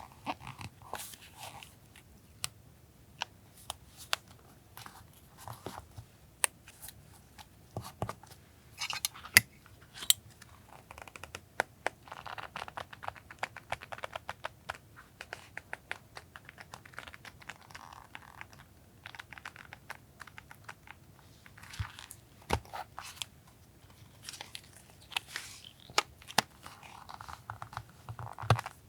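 Collage paper and stickers being handled on a desk: rustling and crinkling paper, some tearing, and many sharp taps and clicks as pieces are picked up and set down.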